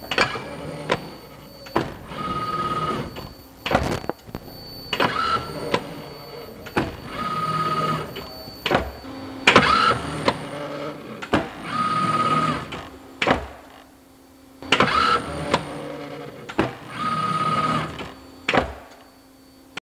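Model F1-DC semi-automatic screen printer cycling through bat prints: sharp clicks and clacks, each followed by a roughly one-second mechanical stroke with a steady whine, repeating about every two and a half seconds.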